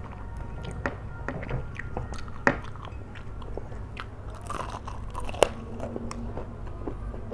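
A person chewing flat rice noodles (kwetiau) close to the microphone: many wet smacking and clicking mouth sounds, with two sharper clicks about two and a half and five and a half seconds in, over a low steady hum.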